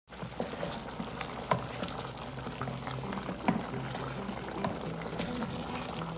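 Thick beef stroganoff cream sauce simmering in a pot while a wooden spoon stirs it: wet bubbling with scattered small pops and clicks. Soft background music plays underneath.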